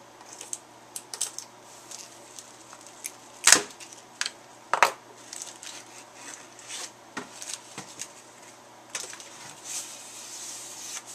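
Cardboard mailing tube being opened by hand: tape picked and peeled off and the plastic end cap worked free, giving scattered small clicks and two sharper knocks a few seconds in. Near the end comes a longer soft rustling scrape of cardboard and paper.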